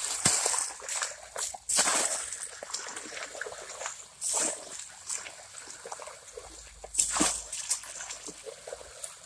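Water being scooped with a black gold pan and splashed out onto sand and gravel, in about four separate pours a couple of seconds apart, over a steady wash of water.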